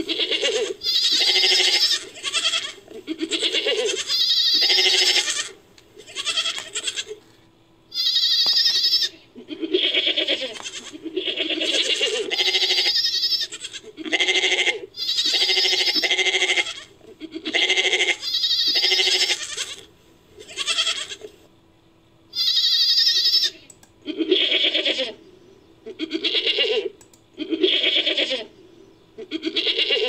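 Japanese serow sound effect made from goat bleats and recorded serow calls. It is a long series of bleating calls, each about a second long, repeated with short pauses between them; a few calls are thinner and higher-pitched than the rest.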